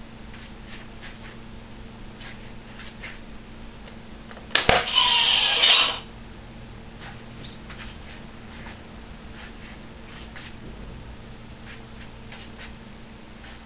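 Hasbro Iron Man 2 toy helmet's electronic sound effect from its small speaker: a sudden click, then a loud, harsh blast that lasts just over a second and cuts off, about five seconds in. Faint scattered ticks of handling the plastic helmet are heard around it.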